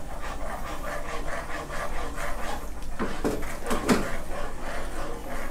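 Metal ladle stirring and scraping a thick simmering sauce around a nonstick wok, with an irregular crackle of small scrapes and bubbling. A few louder scrapes or knocks come about three to four seconds in.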